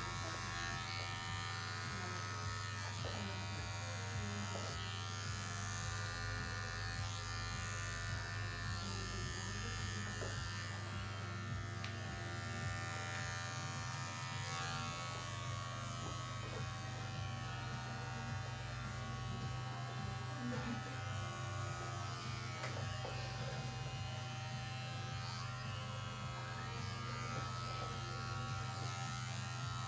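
Cordless electric hair clipper buzzing steadily as it shears long hair down to the scalp, its pitch stepping up slightly about halfway through.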